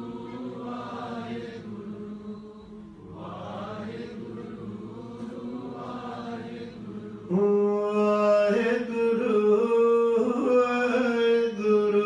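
Sikh congregation chanting simran together, a slow sung devotional chant of the Guru's name. About seven seconds in, a louder voice on the microphone comes in, holding long notes over the chant.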